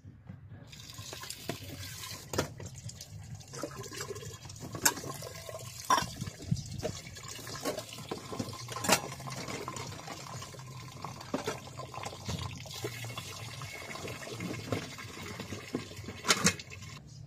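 Water running steadily from the spigot of a plastic water container into a cooking pot, filling it to rinse rice, starting about a second in. Scattered sharp clinks and knocks of the pot and bowls sound over the running water.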